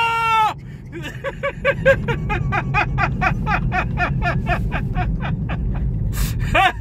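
A man's drawn-out cry of surprise that breaks off about half a second in, then a long run of laughter, about five quick 'ha's a second, over the steady low road rumble inside a moving Tesla Model 3's cabin.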